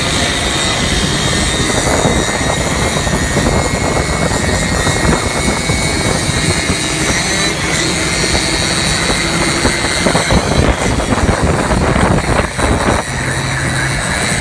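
Qingqi motorcycle rickshaw engine running steadily, a loud continuous engine drone.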